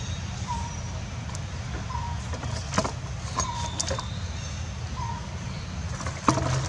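Sharp clicks and crackles of a plastic water jug and bottle handled and bitten by a long-tailed macaque, louder near the end, over a steady low rumble. A short high note repeats about every one and a half seconds.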